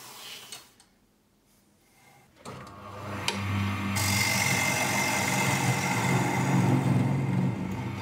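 Wood lathe: after a short quiet gap the motor comes up and runs with a steady hum. From about four seconds in, a turning tool cuts into the end face of the spinning wooden bracelet blank, a steady scraping hiss over the motor.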